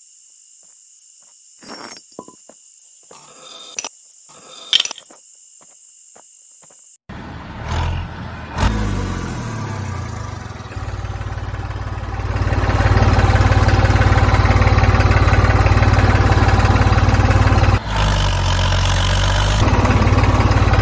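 Faint clicks and taps of small parts being handled. About seven seconds in, a steady, low engine-like running sound starts up. It grows louder a few seconds later and drops out for a moment near the end.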